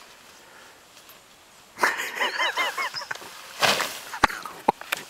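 A folded pop-up tent springing open, its nylon fly and spring-steel hoop frame unfurling with a short rush of fabric noise a little past halfway, followed by a few light clicks. Just before it, a wheezing, quickly pulsing vocal sound.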